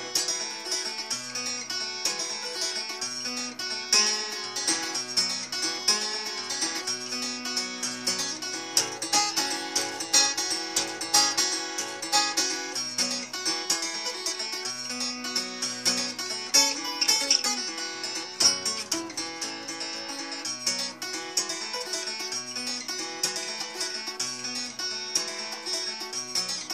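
Solo acoustic guitar fingerpicked, a melody played over repeating bass notes as an instrumental break in a folk-blues song.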